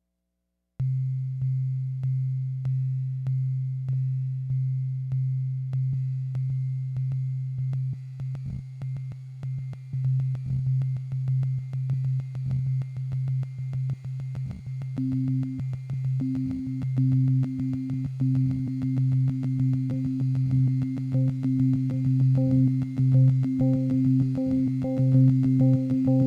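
Critter & Guitari Pocket Piano synthesizer playing a low, pure-toned drone that begins about a second in and pulses in repeated fading strokes. About halfway through a higher held note joins it, and near the end faint higher notes flicker above.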